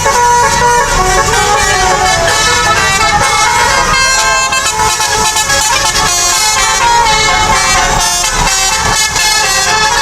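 A bus's 'telolet' multi-tone musical horn playing a loud, fast run of changing notes without a break, over a low rumble.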